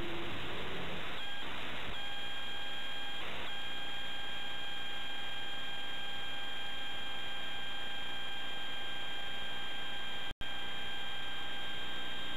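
Hiss from VHS tape playback, joined about a second in by a steady electronic beep tone that breaks off briefly twice and then holds. A short dropout cuts all sound near the end.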